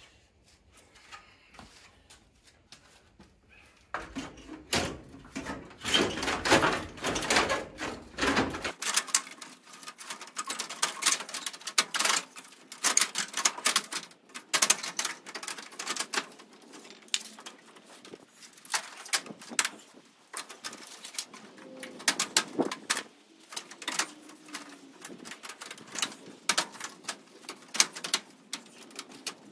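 Irregular clicks, taps and knocks of a plastic grille being handled and pushed into place on the front of a Nissan D21 Hardbody pickup. The sounds are sparse at first and come thick and fast from about four seconds in.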